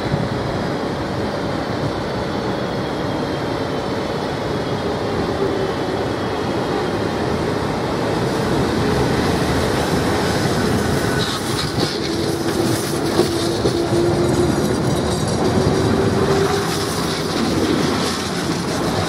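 Ganz UV tram running on street rails and passing close by, louder through the middle as it goes past. Its wheels clack over the rail joints, with a faint steady hum, over a bed of city traffic noise.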